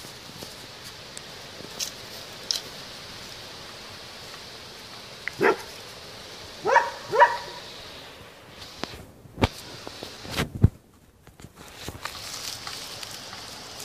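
A dog barking: one short bark about five and a half seconds in, then two quick barks a second later. Two sharp knocks follow.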